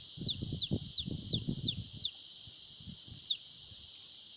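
Newly hatched painted spurfowl chick peeping: short, high, falling peeps about three a second, stopping about two seconds in, then one more a second later.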